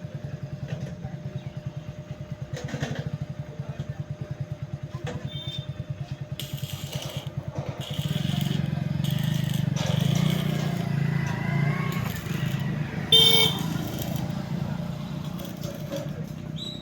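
An engine running with a rapid, even putter that grows louder about halfway through, and a short horn toot near the end.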